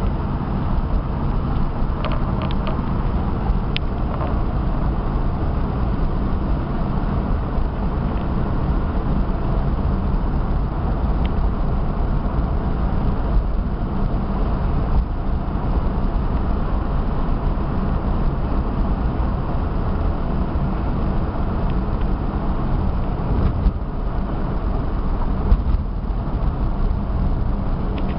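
1958 Chevrolet Bel Air's 283 V8 running steadily while the car is driven at low speed, with a constant low engine hum and road noise.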